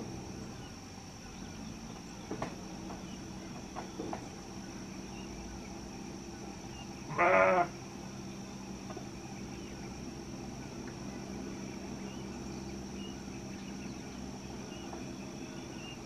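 A single loud animal call lasting about half a second, some seven seconds in, over a steady faint high-pitched tone and low hum; a few faint clicks come at about two and four seconds in.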